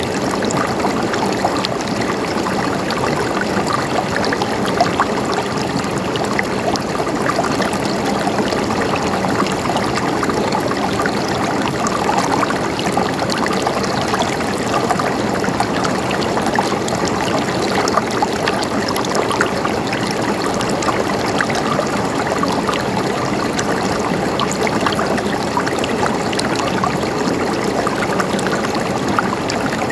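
Flowing water gurgling steadily, a stream with many small splashes and drips.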